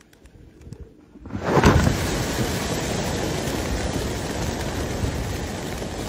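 A flock of pigeons bursts into a loud mass of wingbeats about a second in as a net trap springs over them, and the dense, rain-like flapping runs on as the netted birds struggle.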